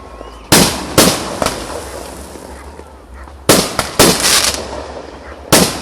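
Aerial fireworks shells bursting overhead: about five loud bangs, coming in pairs about half a second apart, each dying away over a second or so, with a short crackle after one of them.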